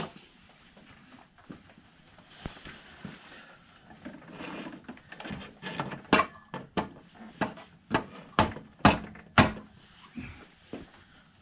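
Rubber mallet knocking on a motorcycle's front axle to drive it loose, about eight sharp knocks in quick succession after a few seconds of handling noise.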